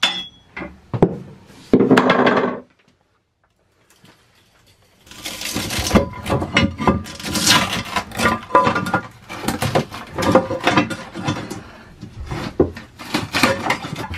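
Rapid scraping and knocking as debris is cleared out of a boat's mast step pit, after a short silence a few seconds in.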